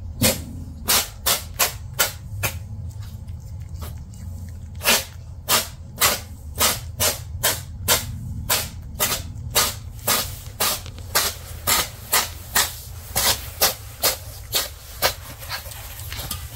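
A cat chewing canned wet food, including a piece of mussel: a long run of wet smacking clicks, about two a second, with a short break around three seconds in. A steady low hum runs underneath.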